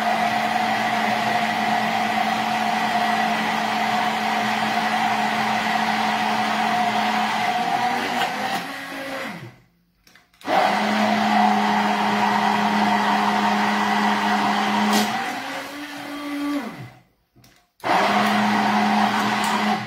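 Hand-held immersion blender running in a mug, whipping egg and oil into homemade mayonnaise: a loud, steady motor whine. It stops about halfway through, starts again, and shifts in pitch before stopping once more. It then runs briefly again and cuts off at the end.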